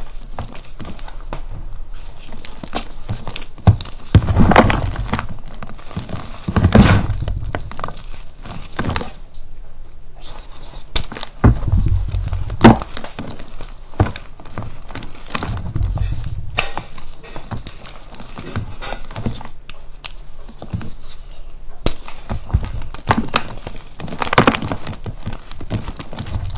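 Hands crumbling and crushing thick blocks of reformed gym chalk: dry crunching and crackling, with chunks and powder pattering onto a loose heap. Louder crushes come every few seconds.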